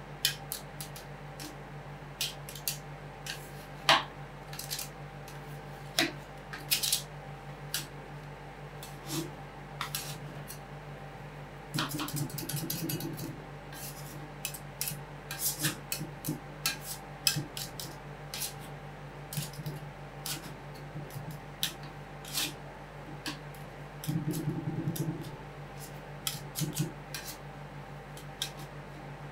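Metal spatulas tapping, chopping and scraping on the steel cold plate of a fried ice cream roll machine, with irregular sharp clinks and two spells of rapid chopping, over a steady low hum.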